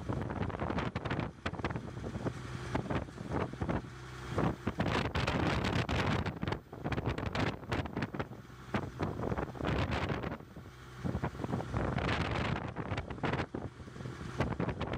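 Wind gusting hard on a phone microphone at sea, over the steady low hum of a boat's engine.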